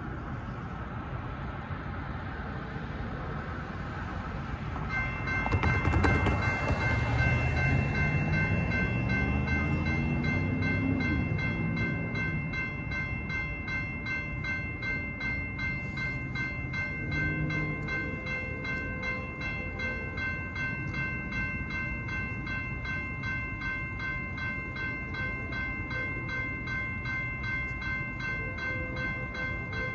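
Railroad crossing signal activating: an electronic crossing bell starts about five seconds in and rings rapidly and steadily as the gates lower. As the bell starts, a vehicle passes loudly, its engine rising in pitch for a few seconds.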